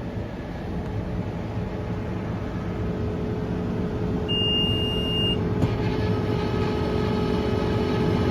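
New Holland Workmaster tractor engine running steadily under load while baling hay, heard from the cab and growing a little louder. About four seconds in, a single electronic beep sounds for about a second.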